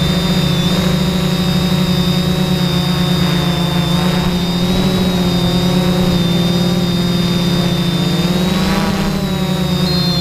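Drone's motors and propellers running in flight, heard from the camera on board: a loud steady hum with a high whine above it, the pitch rising and falling briefly near the end.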